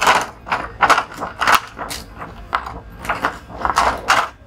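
Thin plastic and paper sheets of an LED TV panel being handled and peeled off, a run of irregular crinkling crackles and light knocks.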